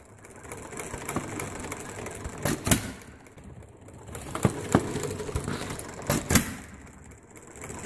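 Scale-model Briggs double side-shaft gas engine running on propane through a makeshift pipe-tube mixer: a steady mechanical clatter with sharp firing knocks every second or two, swelling and easing twice. It is running well on the homemade mixer.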